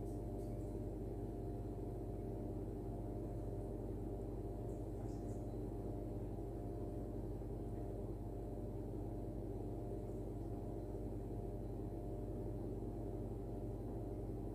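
A steady low hum with several held tones, unchanging throughout.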